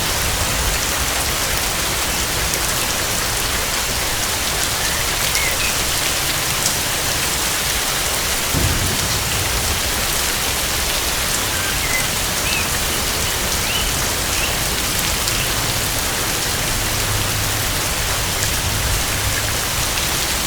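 Heavy steady rainfall pattering on foliage, with low thunder rumbling about eight seconds in and again near the end. A few faint short chirps sound through the rain.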